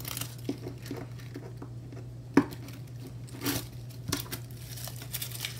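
Strips of washi tape being peeled off a desktop and crumpled together: scattered crinkling, rustling and light taps, with one sharp click about two and a half seconds in.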